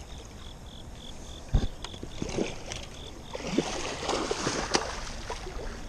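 A large blue catfish thrashing and splashing at the water's surface while being brought to a landing net, with a few sharp knocks, the loudest about a second and a half in, and a spell of heavy splashing in the second half.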